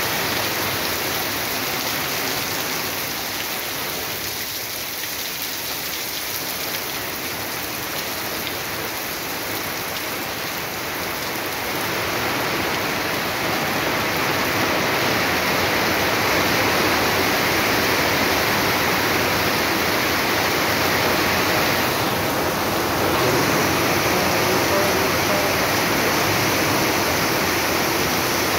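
Heavy rain pouring down steadily, with runoff streaming off a roof edge. The downpour grows louder about twelve seconds in.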